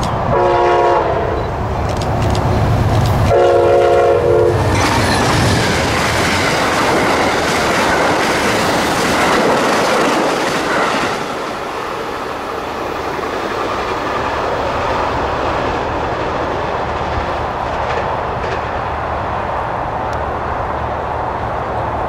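Amtrak P42DC locomotive's K5LA five-chime horn sounding two blasts, a short one and then a longer one about three seconds later. The passenger train then passes at track speed, a loud rush of wheel and rail noise that drops off about eleven seconds in.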